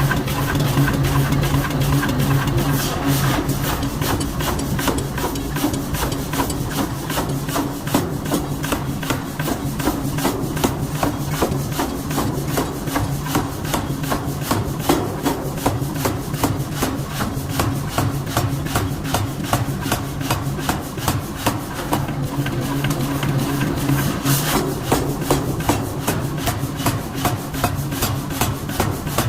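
Forging hammer striking a 106 kg steel bearing forging in a quick, even run of blows, over a steady low machine hum.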